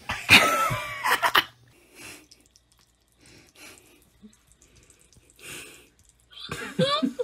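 A cat's sudden hissing yowl about half a second in, lasting about a second. Then faint, scattered splashes of water from a running faucet, and a short burst of a voice near the end.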